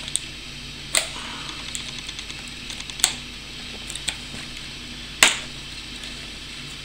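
Stiff clear plastic blister packaging clicking and crackling as fingers pry at its glued-shut edge: a handful of irregular sharp clicks, the loudest about five seconds in, over a low steady hum.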